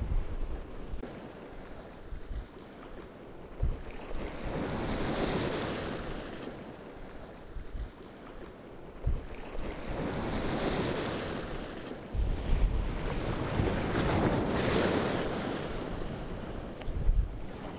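Sea waves washing in over the shallows in slow surges, one about every five seconds, with wind buffeting the microphone in gusts, strongest in the second half.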